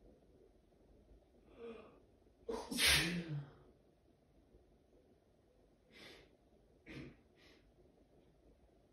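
A person with a head cold sneezing once, loudly, about two and a half seconds in, after a short sharp intake of breath, followed by a few short breaths.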